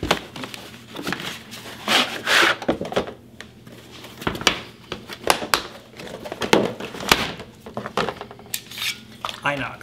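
Handling noise as a plastic pistol case and its box are opened and a stainless Beretta 92FS pistol is lifted out: irregular clicks and knocks of plastic and metal, with a short rustle about two seconds in.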